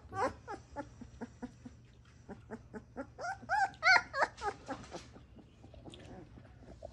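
Pit bull puppies about three weeks old whimpering and squealing in short, high cries that rise and fall, with a louder cluster of squeals about three to four seconds in.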